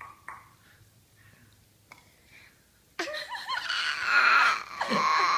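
A young child making a sudden, loud, sustained high-pitched squeal starting about three seconds in, after a few soft short vocal sounds.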